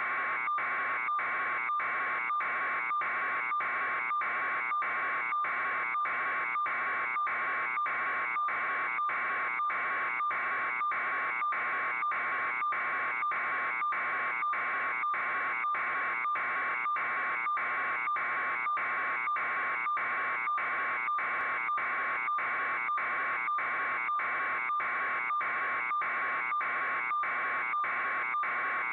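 An electronic buzzing alarm tone pulsing evenly, about two buzzes a second, at a constant level.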